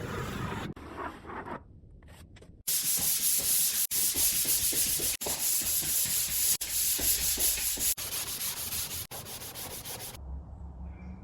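Dried drywall joint compound being sanded: a loud, steady scratchy rubbing noise in several short cut-together takes, starting about three seconds in and cutting off abruptly shortly before the end.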